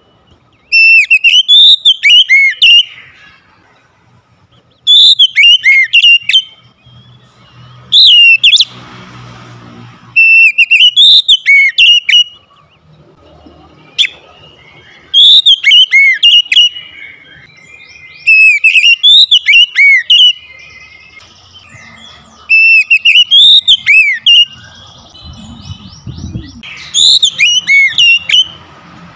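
Oriental magpie-robin singing in full voice: about eight loud phrases of quick, rising and falling whistled notes, each a second or two long, with short pauses between them.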